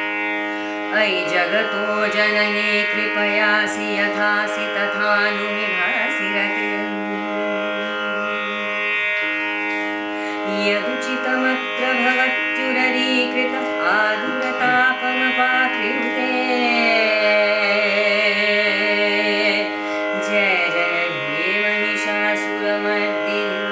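Background music in Indian classical style: a melody that slides between notes over a steady held drone.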